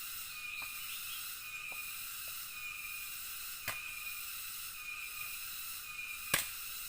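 Rainforest insect chorus, a steady high-pitched drone that swells about once a second, with a few faint ticks and two sharp knocks, the louder one near the end.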